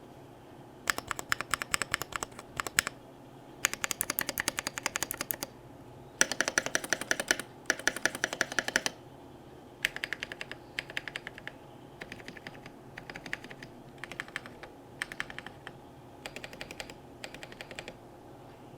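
Melody96 mechanical keyboard with Holy Panda tactile switches, a brass plate and PBT double-shot OSA-profile keycaps, typed on fast in bursts of one to three seconds with short pauses between words. The later bursts are shorter and softer.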